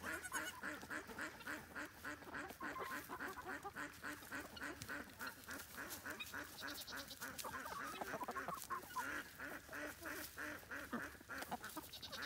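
Poultry giving a steady, fast series of short calls, about four a second.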